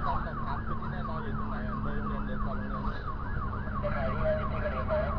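Rescue vehicle's electronic siren on a fast yelp, warbling up and down about three to four times a second, over the steady rumble of the vehicle's engine and road noise.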